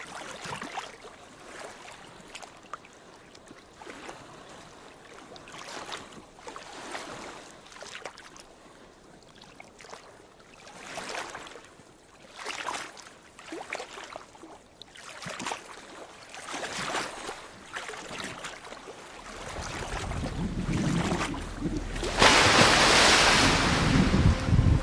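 Small waves lapping and splashing against a boat at sea, swelling and fading every second or two. About nineteen seconds in, a boat motor's low steady hum comes in, and near the end a loud rush of water and wind noise takes over.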